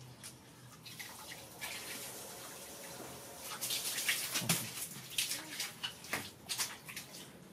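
Water splashing and pouring around a bucket of water and a running garden hose as a young monkey is bathed, with a flurry of sharp splashes through the second half.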